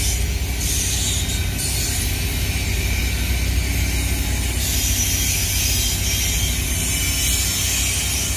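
Double-stack intermodal container train passing slowly: steady low rumble of wheels on rail and rattling of the well cars.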